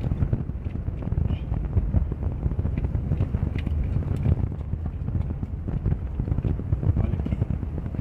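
Car driving along a bumpy dirt road, heard from inside the cabin: a steady low rumble of tyres and body with irregular bumps and light knocks.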